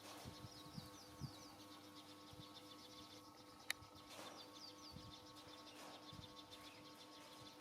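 Faint outdoor background of small birds chirping in quick runs of short, curving high notes, twice, over a continuous high insect trill. A single sharp click about three and a half seconds in is the loudest sound.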